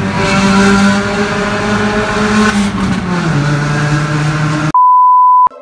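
Hyundai Accent's petrol engine running at raised revs, heard from inside the cabin, with the revs dropping about three seconds in. It cuts off abruptly into a loud, steady electronic beep of under a second.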